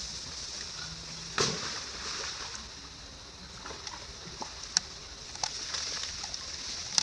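Small water splashes and sloshes at irregular moments, the sharpest about a second and a half in and near the end, over a steady high hiss.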